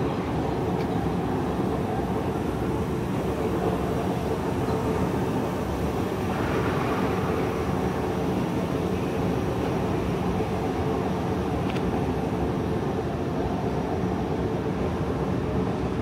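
Steady background din of a large railway-station waiting hall: a continuous low rumble with a steady hum.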